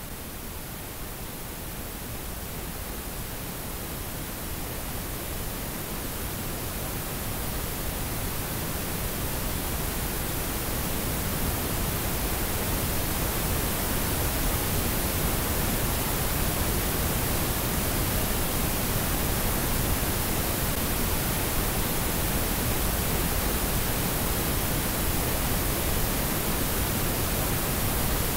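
Harsh noise piece: a dense, even wall of static hiss with no beat, tones or voice, slowly swelling louder over the first dozen seconds and then holding steady.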